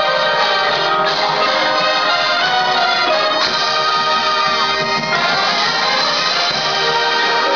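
Marching band playing: the brass holds loud chords that change a few times, over the front ensemble's marimbas, vibraphones and other pit percussion.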